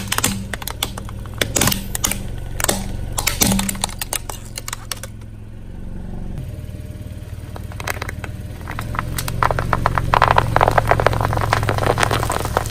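Car engine running slowly under a steady hum while a tire rolls over and crushes crunchy items. Scattered sharp snaps come in the first few seconds, then a quieter stretch, then a dense run of crackling and crunching about nine seconds in.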